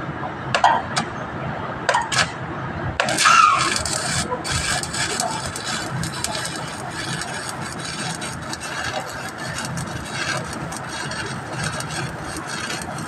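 Arc welding: a few sharp clicks, then about three seconds in the arc catches and crackles and hisses steadily.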